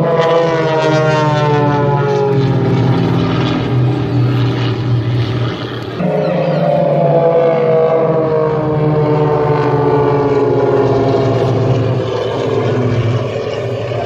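Formation of four single-engine propeller aerobatic planes flying past, their engine and propeller noise falling in pitch as they go by. A second fall in pitch starts sharply about six seconds in as the formation passes again.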